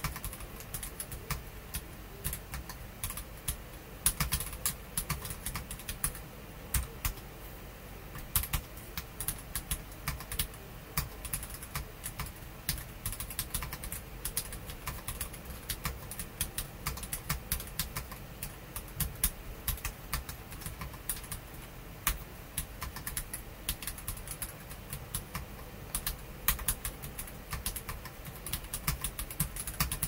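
Fast, continuous typing on a stock Feker Alice 80 mechanical keyboard with NK Silk Olivia switches and Cherry-profile PBT doubleshot keycaps: a dense, unbroken stream of keystroke clicks.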